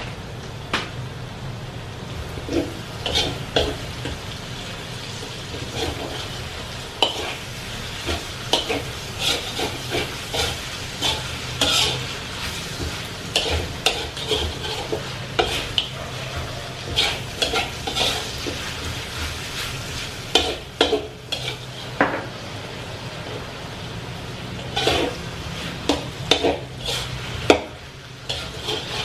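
A metal spatula stirring and scraping chicken and onion in a large metal wok, with irregular clanks and scrapes against the pan over a steady sizzle of frying.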